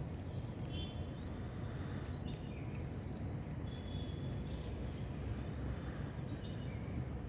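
Steady low rumble of background noise, with a few short, high bird chirps scattered through it.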